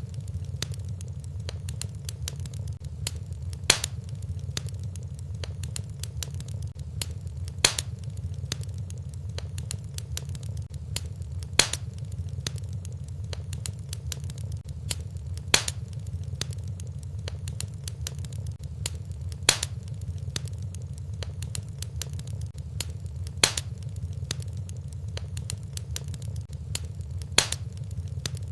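Wood fire crackling in a fireplace over a steady low rumble, with a sharper pop about every four seconds.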